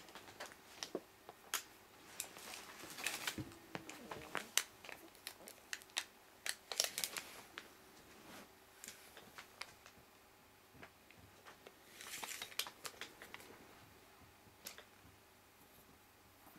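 Quiet handling noise: scattered light clicks and rustles of a metal tape measure being handled and laid against fur and blankets.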